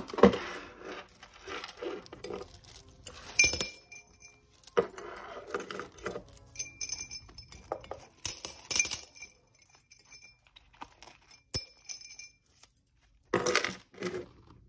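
Loose coins clinking and clattering as they are dropped into a change jar, in several separate bursts with a bright ringing after each.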